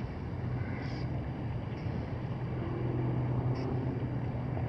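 A steady, low motor hum under a rumble of wind and water.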